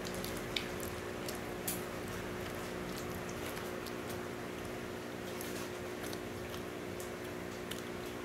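Close-up chewing of a hamburger, with faint wet mouth clicks now and then, over a steady low hum.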